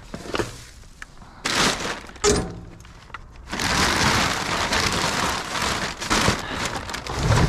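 Scrap being rummaged through in a dumpster: rustling and scraping of debris, with a sharp knock a couple of seconds in and a long stretch of continuous rustling from about the middle to the end.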